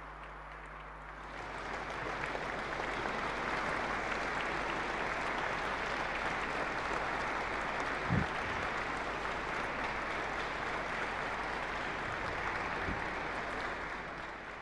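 Audience applauding steadily, the clapping swelling about a second and a half in and fading near the end. A single dull thump sounds about eight seconds in.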